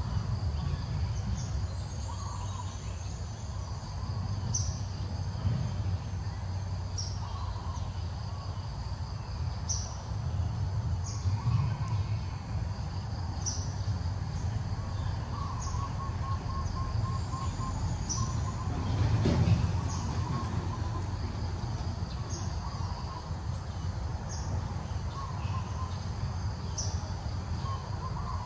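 Forest ambience: a bird repeats a short high chirp every two seconds or so over a steady low rumble.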